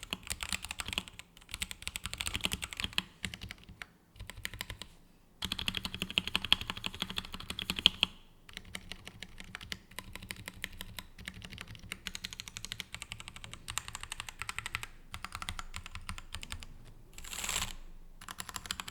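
Typing on a Royal Kludge RK84 mechanical keyboard with RK brown tactile switches: runs of quick keystroke clicks with short pauses between them. A fast, dense flurry of keystrokes comes about a third of the way in, and there is a brief louder burst near the end.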